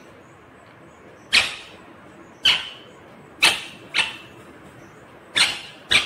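Indian ringneck parakeet giving short, sharp squawks, six in all at uneven intervals, two of them close together near the end.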